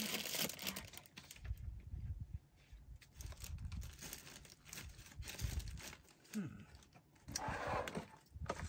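Rummaging through craft-supply containers: rustling and crinkling of plastic packaging with scattered soft knocks and clicks, and a louder spell of rustling near the end.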